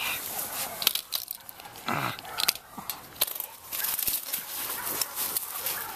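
Footsteps brushing and crunching through field grass while someone walks quickly, with crackling handling noise from a handheld camera.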